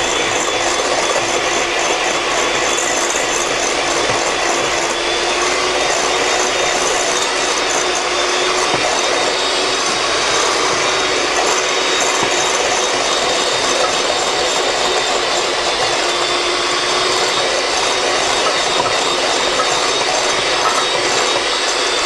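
Electric mixer running steadily at a constant speed, its motor hum even throughout as it beats cake batter of whipped eggs, melted butter and milk.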